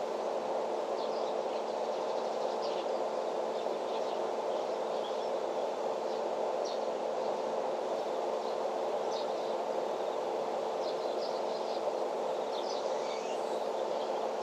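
Outdoor ambience: scattered short, high bird chirps, with a few rising calls near the end, over a steady low hum.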